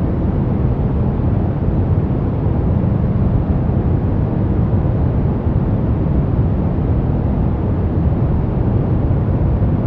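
Steady relaxation noise track of the 'white noise' kind: an unbroken, even rush with no rhythm or change, deep and rumbling, with little hiss on top.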